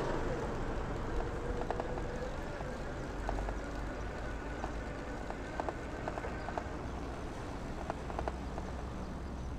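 Riding a bicycle along a paved street: a steady low rumble of wind and tyres, with scattered light clicks and rattles.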